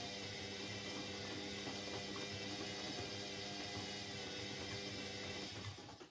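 Indesit 71252 washing machine running with a steady hum and water noise, which stops shortly before the end.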